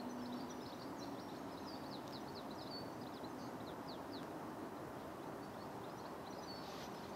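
Small birds twittering in quick, high chirps over a steady hiss of outdoor background noise. The chirps come thick in the first half and return briefly near the end.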